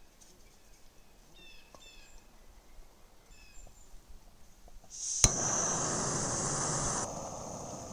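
Faint bird chirps, then a backpacking canister stove's gas valve opens with a sudden hiss and a single sharp click. The burner then runs with a steady hiss that drops to a quieter level about two seconds later.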